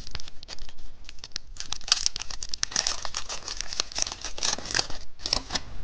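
Crinkly candy wrapper being handled and torn open: a dense run of sharp crackles, busiest through the middle stretch.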